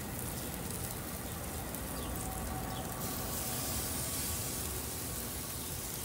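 Marinated chicken breasts sizzling on hot gas-grill grates, a steady hiss as pieces are laid down, over a low steady rumble.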